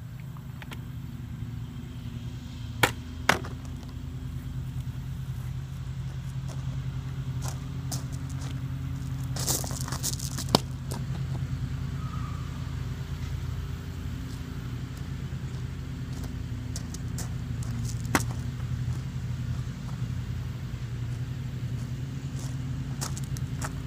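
An engine drones steadily throughout, with a few sharp knocks and taps over it, the loudest about 3 s, 10 s and 18 s in.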